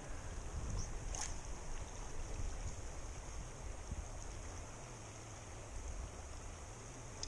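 Clear, shallow mountain river flowing over a rocky bed: a steady rushing hiss with a low rumble underneath.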